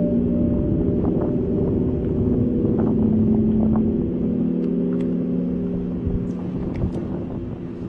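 A drawn-out, horn-like droning hum of several held tones over a low rumble, the kind of recording passed around as a mysterious sound from the sky. It eases off slightly near the end, with a few faint clicks in the second half.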